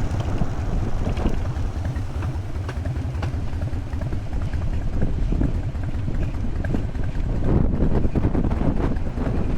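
Harley-Davidson Evo engine's air-cooled V-twin running on the move, a steady low rumble mixed with wind buffeting on the microphone.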